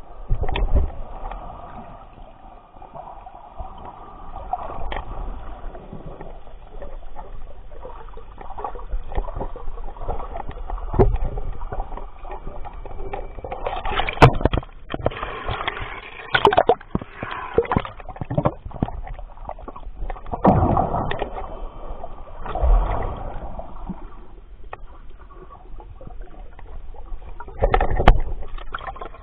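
Water sloshing and gurgling around a camera held under water by a snorkeler. Irregular louder surges of splashing and bubbling come several times in the second half.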